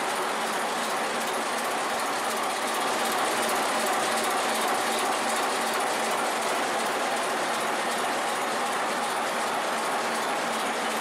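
Diesel locomotive engine running steadily under load, heard from inside the locomotive's machinery room as a loud, even mechanical drone.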